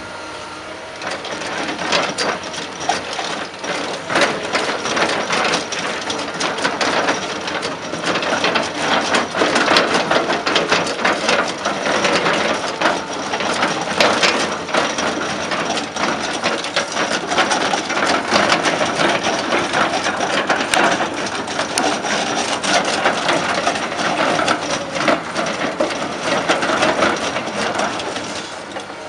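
Excavator-mounted rotary drum cutter grinding into a rock face, its carbide picks chipping stone in a dense, rapid crackle over the hydraulic motor's hum. The grinding builds up in the first second or two and eases off near the end as the cutter comes away from the rock.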